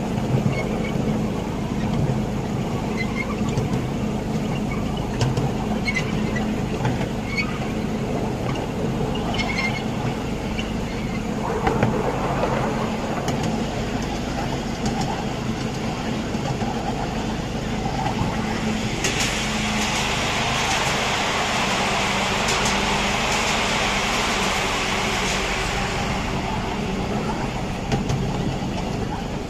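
Miniature park railway train running along its narrow-gauge track with a steady low hum and wheel noise. About two-thirds of the way in, a louder hiss rises and holds for several seconds as a small live-steam locomotive passes on the next track.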